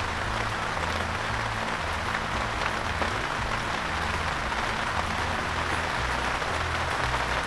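Heavy rain pouring steadily, a dense even hiss of a downpour.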